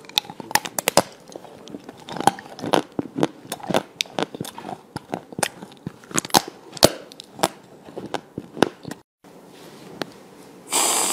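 Close-up crunching and biting of frozen spoon-shaped sweets: many sharp cracks and crunches at an uneven pace. Near the end, an aerosol whipped-cream can hisses loudly and steadily.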